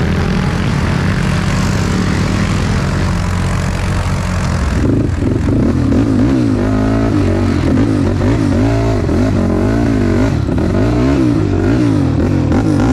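ATV engine running hard at close range, its revs rising and falling over and over as the throttle is worked over rough trail. There is a rushing noise over the engine for the first five seconds or so.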